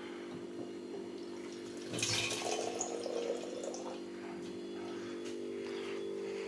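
Water running into an empty bottle, a rushing splash that starts about two seconds in and slowly tails off, over a steady low hum.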